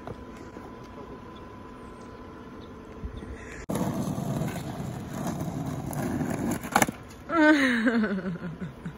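Skateboard wheels rolling on rough asphalt, a steady gritty rumble, ending in a sharp clack of the board about seven seconds in. A voice then lets out a long cry that falls in pitch. Before the rolling there is only faint outdoor background noise.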